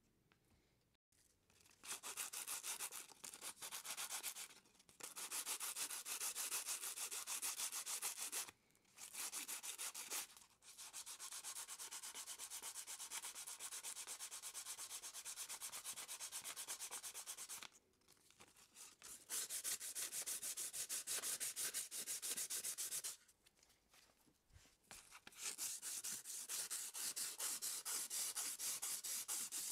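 Strip of sandpaper rubbed back and forth by hand over an oak knife handle, a quick rasping hiss of strokes that comes in several spells with short pauses between them.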